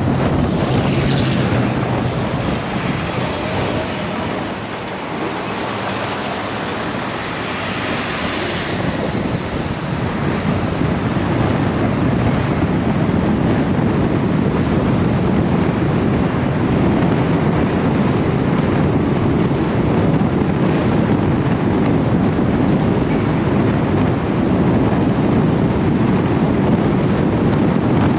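Car driving along a paved road: steady tyre and wind noise, with wind buffeting the microphone.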